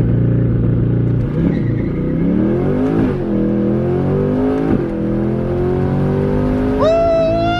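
Car engine at full throttle through a hard launch, its pitch climbing through each gear and dropping back at three quick upshifts.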